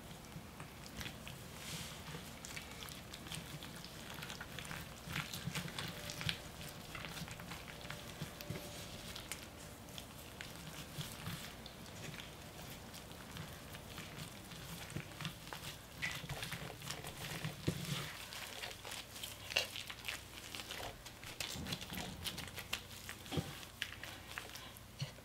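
Gloved hands pressing and folding salted napa cabbage leaves around a wet, chili-seasoned radish filling: irregular soft squelches and crinkles of leaves and glove.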